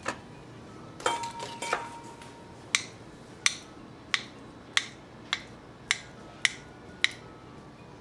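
Knife slicing a soft ripe banana on a cutting board, with a sharp click each time the blade meets the board: eight even cuts about two thirds of a second apart. Before that, about a second in, there are a few knocks of handling.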